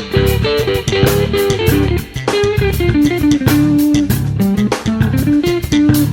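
Background music: a guitar-led instrumental with bass guitar and drums, at a steady beat.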